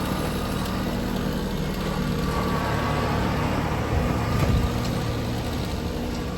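Engine running steadily, with a few low thumps about four seconds in.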